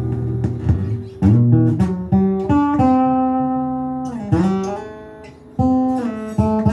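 Morisson steel-string acoustic guitar being strummed: several chords struck in turn. One is left ringing for over a second, then slides down into a new chord that fades before the strumming picks up again.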